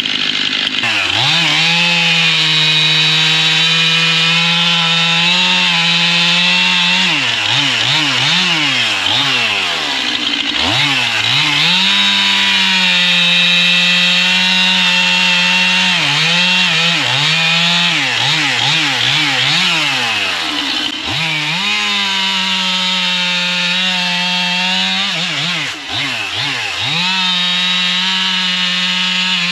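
Stihl MS 271 two-stroke chainsaw running at full throttle and sawing through wood, its engine note held steady under load for several seconds at a time. In between, the pitch rises and falls repeatedly as the throttle is worked or the chain enters and leaves the cut.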